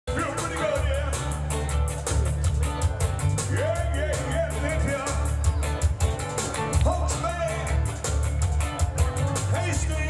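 Live band music with a male singer's voice over a steady drum beat and a strong bass line.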